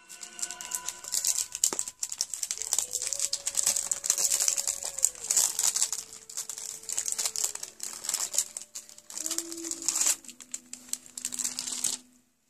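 Makeup packaging being handled and unwrapped, crinkling and crackling almost continuously, stopping abruptly near the end.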